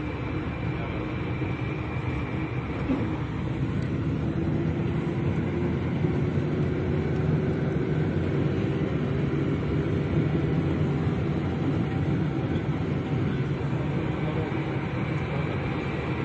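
City bus engine and running noise heard from inside the passenger cabin while the bus drives. It is a steady drone that grows a little louder and higher in pitch over the first few seconds, then holds.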